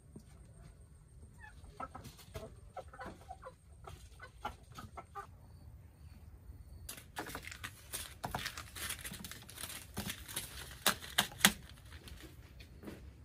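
Chickens clucking in short calls, then a longer spell of rustling and clattering, with three sharp clicks close together about two seconds before the end.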